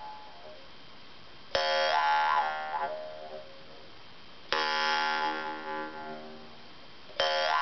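Yakut khomus (jaw harp) plucked three times, about three seconds apart, the first about a second and a half in. Each pluck rings out as an overtone-rich drone whose emphasised overtone slides up and down as the mouth shapes it, fading over about two seconds.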